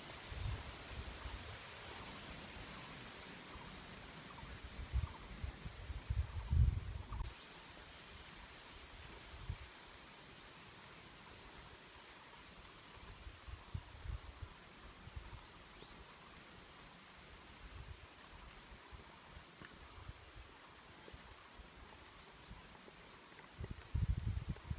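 Insects giving a steady high-pitched drone, one unbroken buzz, with a few brief low rumbles on the microphone about five to seven seconds in and again near the end.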